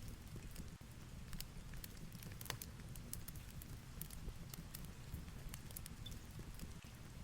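Fireplace crackling with scattered, irregular sharp pops over a steady low rumble and light hiss of heavy rain and wind.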